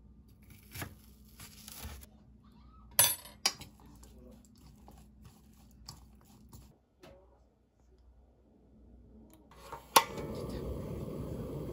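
Irregular knocks and clinks of kitchen utensils on a knife and cutting board. About ten seconds in comes a sharp clack, then a steady sizzle of food starting to fry in a hot pan.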